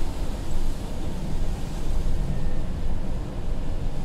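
Scania P250 truck's diesel engine running and its tyres on a wet road, heard inside the cab as a steady low rumble with a hiss over it.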